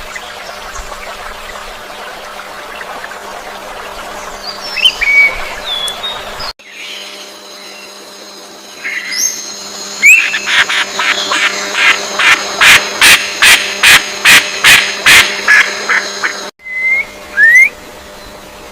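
Birds calling in three spliced clips. First come scattered chirps and short whistled slurs. A run of harsh, evenly repeated notes follows at about three a second, over a steady high ringing. Two rising whistles come near the end.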